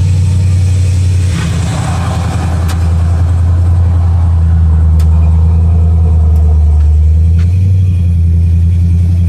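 Hellcat supercharged 6.2-litre HEMI V8 swapped into a 1982 Dodge D-100 pickup, running loud and steady; its note drops lower about a second in and rises again near the end.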